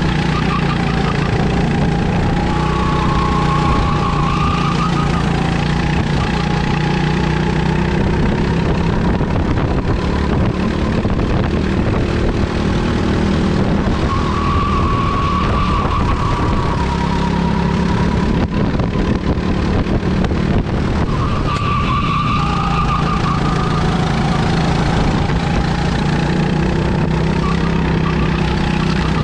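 Go-kart engine heard onboard at racing speed, its note climbing on the straights and dropping off into the corners several times over.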